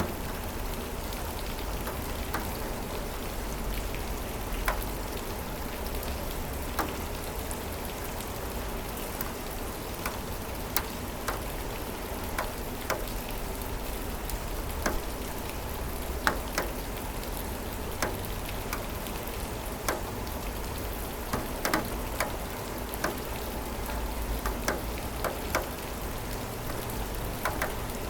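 Steady rain falling, with a constant hiss and many separate drops ticking sharply on a nearby surface.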